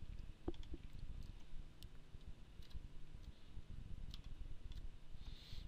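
Computer mouse and keyboard clicking: a handful of separate sharp clicks, spaced roughly a second apart, over a low, steady background hum.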